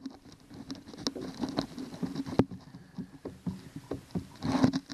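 Scattered light taps and clicks of handling noise, with a busier cluster near the end.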